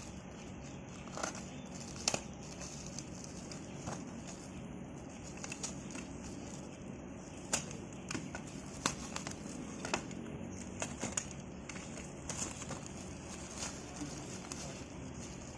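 A parcel being unwrapped by hand: packaging crinkling and tearing, with scattered crackles and small clicks.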